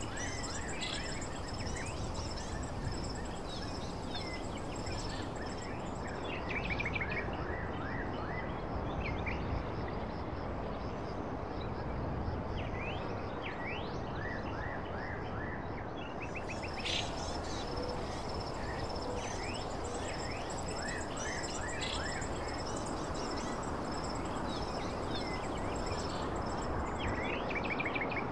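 Outdoor background noise with small birds chirping now and then in short, quick series, over a thin, steady high whine.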